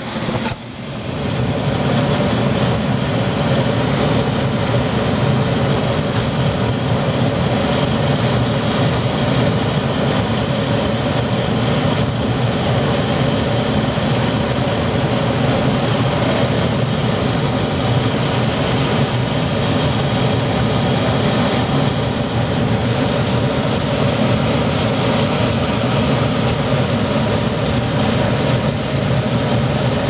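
Trane XB90 gas furnace running steadily, its inducer draft motor whirring and the gas burners firing with a constant rush.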